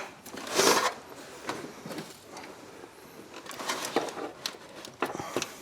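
Hand tools working on a spark plug under the hood: a scrape about half a second in, then scattered light metal clicks and knocks as the socket and extension are worked onto the plug.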